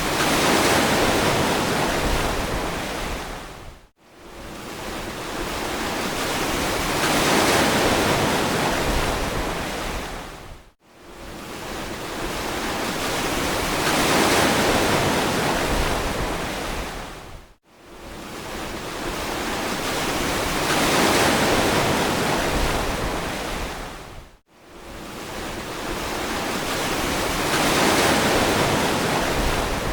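Ocean surf washing onto a beach, a steady hiss that swells and recedes in even cycles about every seven seconds. Each swell ends with a brief, abrupt drop to near silence before the next begins, four times in all.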